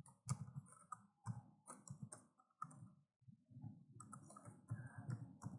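Faint computer keyboard typing: a run of irregular key clicks as a word is typed, corrected and retyped.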